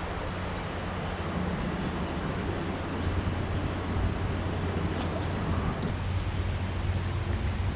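Steady background rumble with a low hum, traffic on the overhead road bridge, mixed with wind on the microphone; a few faint clicks.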